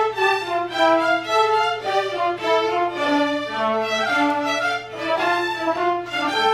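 A community orchestra playing classical music, with violins carrying a moving melody over lower strings.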